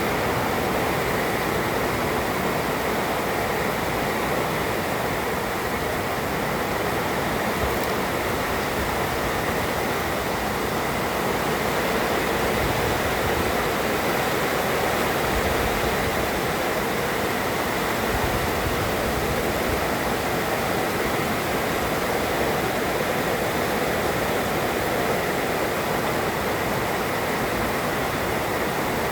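Heavy rain pouring down steadily, a dense even hiss with no breaks.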